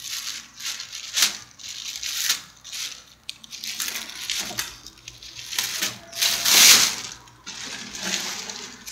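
Plastic shopping bag rustling and crinkling as it is tugged off a rolled aluminium sheet, in irregular bursts with a few light clicks, the loudest rustle about two-thirds of the way through.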